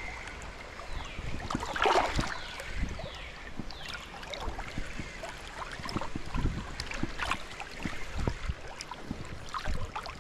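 Creek water sloshing and splashing around the legs of someone wading through current, with scattered small splashes and knocks and a louder splash about two seconds in.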